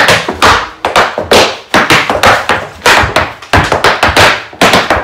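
Irish dance hard shoes striking a hard floor in a quick, even rhythm of sharp taps, about three a second, as a routine of shuffles, clicks and stamps is danced.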